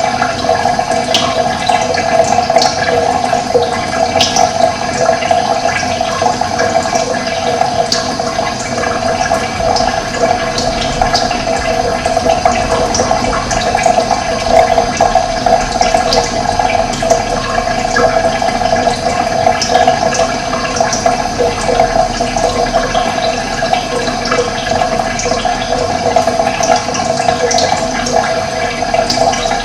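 Steady rush of running water, with short bird chirps scattered over it.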